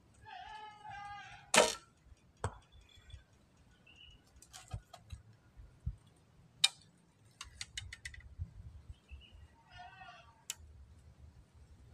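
A traditional Javanese bow loosing an arrow: one sharp string snap about one and a half seconds in, a lighter knock about a second later, then scattered clicks and taps as the bow is handled.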